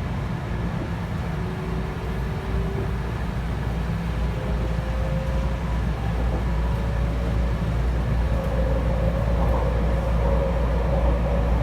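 Cabin noise of a JR West 223 series 0 electric train running on the Kansai Airport Line: a steady low rumble with a faint whine that rises slightly in pitch, the whole getting a little louder.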